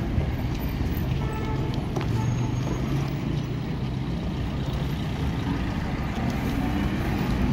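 Street traffic noise: a steady low engine rumble from vehicles on the road.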